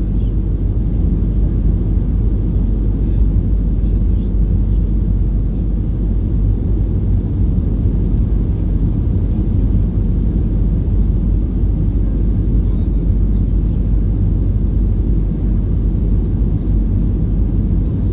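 Steady low rumble inside the cabin of an Airbus A320-214 airliner in flight: the noise of its CFM56 turbofan engines and the airflow around the fuselage.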